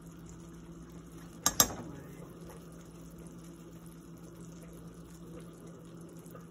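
Melted butter sauce simmering quietly in a steel pot, under a steady low hum, with one sharp click of plastic or metal about a second and a half in while seasoning is shaken into a measuring spoon.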